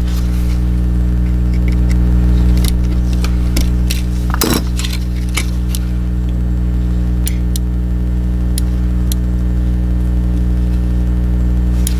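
Light plastic clicks and rattles of a disassembled Logitech G Pro mouse's shell being handled, with one sharper knock about four and a half seconds in, over a steady low drone.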